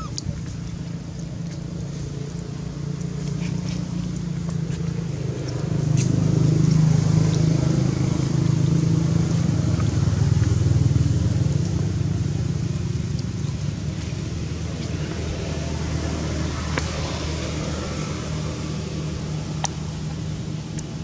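A motor engine running steadily nearby, growing louder about six seconds in and slowly easing off after about twelve seconds, with a few sharp clicks.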